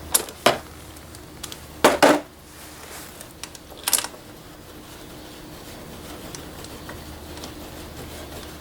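A few sharp metallic clinks and knocks at irregular intervals, like hand tools or metal parts being handled, over a steady faint hum.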